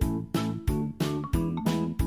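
Background music with a steady beat, a pitched note struck about three times a second.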